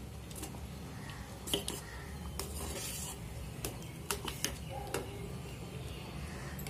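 Steel spoon stirring soft cooked flattened rice and grated coconut in a stainless steel pot: a wet squelching stir with several sharp clicks of the spoon against the pot, over a steady low hum.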